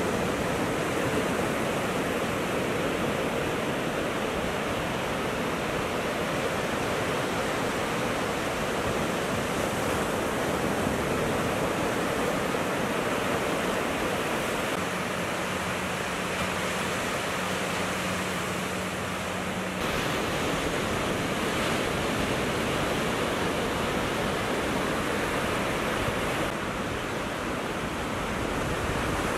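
Ocean surf breaking and washing up a sandy beach: a steady, unbroken rush of waves and foam.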